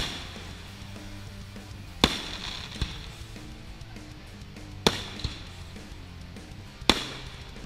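Aerial firework shells bursting at a distance: four sharp bangs about two seconds apart, each with a short echoing tail, and a couple of fainter pops between them.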